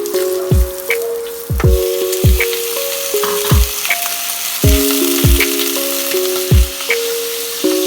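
Food frying in a pan, a steady sizzling hiss that gets louder about two seconds in, under lo-fi background music with a slow kick-drum beat.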